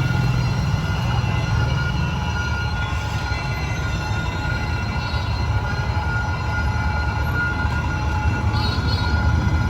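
Passenger train hauled by a D19E diesel-electric locomotive running steadily on the rails: a constant low rumble with several steady high-pitched tones ringing over it.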